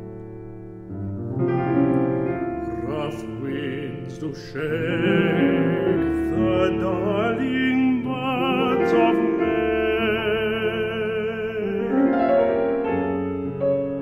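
Tenor singing a classical art song in operatic style, with wide vibrato on held notes, accompanied by piano. The piano plays alone for the first few seconds and again near the end.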